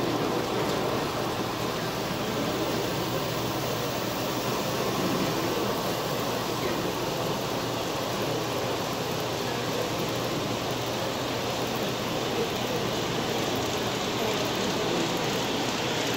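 Model trains running steadily along the tracks of a layout, under the steady murmur of a busy exhibition hall.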